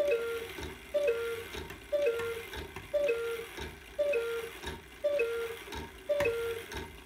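1850s antique cuckoo clock calling the hour: its bellows-and-pipe cuckoo gives a two-note falling call about once a second, each opening with a sharp strike. It is part of a run of ten calls counting 10 o'clock.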